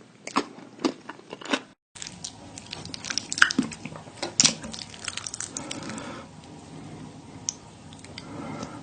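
Close-miked eating: bites and chewing with sharp, separate clicks, a short dropout about two seconds in, then denser, softer chewing.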